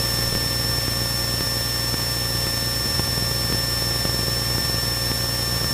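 Cessna 172N's Lycoming four-cylinder engine and propeller running steadily in level cruise, an even drone with a thin steady high whine over it.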